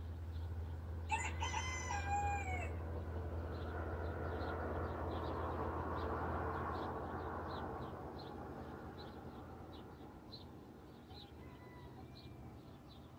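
A rooster crows once about a second in, and a fainter crow follows near the end. Short high chirps from a small bird repeat about twice a second throughout, and a rushing noise swells and fades in the middle.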